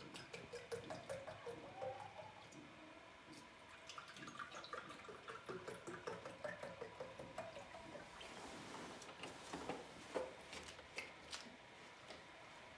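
Fruit juice poured from a carton into glasses: a faint gurgling trickle rising in pitch as each glass fills, twice, followed by a few light knocks near the end.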